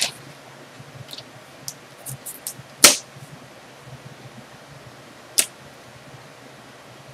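A plastic drawing template being handled and set down on the paper: a few sharp clicks and taps, the loudest about three seconds in, another about five and a half seconds in.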